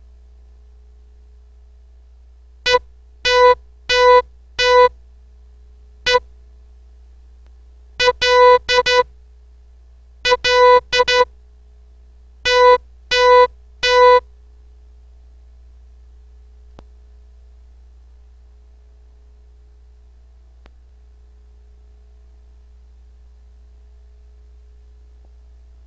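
Morse code sent as a steady-pitched beep tone. Short and long beeps spell out practice words to decode, in four clusters separated by longer gaps, and the code stops a little past halfway.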